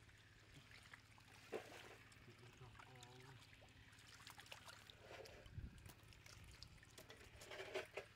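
Faint splashing and sloshing of shallow muddy water as hands grab catfish in a concrete trough, with scattered small splashes.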